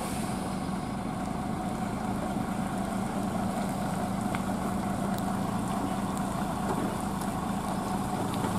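Diesel engine of a heavy tanker lorry running steadily at low speed, a constant low hum with no change in pitch.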